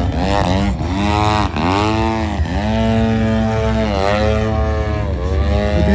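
Engine and propeller of a 120cc AJ Aircraft Slick 540 RC aerobatic plane in flight, its pitch rising and falling several times as the plane manoeuvres overhead.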